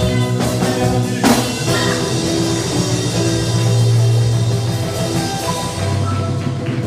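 Live church worship band playing a song, with drum kit, electric guitar and keyboard over a strong, steady bass line; a drum hit lands about a second in.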